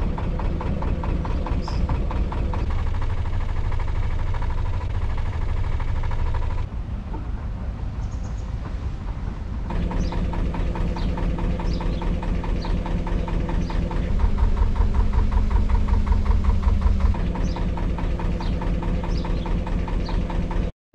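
Narrowboat engine running at a steady cruising beat, a low regular chug. It comes in short stretches joined by cuts, where its pitch and loudness shift slightly.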